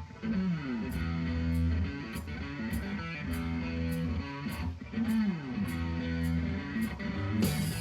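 Live blues band playing an instrumental intro: electric guitar and bass riff with two sliding downward notes over a steady cymbal tick on the beat, the full band coming in louder near the end.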